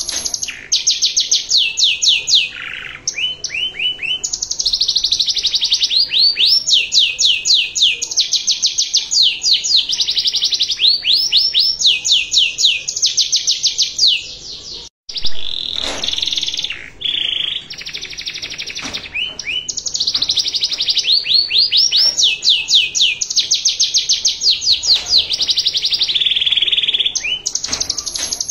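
Domestic canary singing a long, continuous song of fast trills and rolls, rapid runs of repeated high notes and held chattering phrases. There is a brief drop-out about halfway through.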